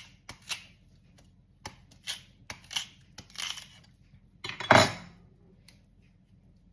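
Close-miked eating sounds: a string of about ten short, crisp crunches and clicks. The loudest, longest one comes a little before five seconds in.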